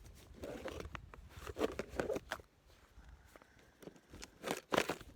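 Irregular rustles and light clicks of fishing tackle being handled, with a cluster of louder clicks near the end.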